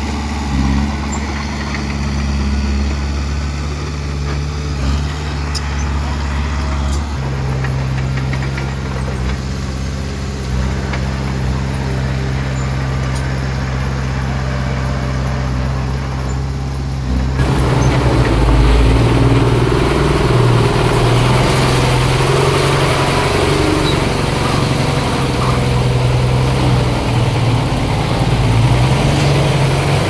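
Bulldozer's diesel engine running steadily, its note shifting about seven seconds in, then turning louder and rougher about seventeen seconds in.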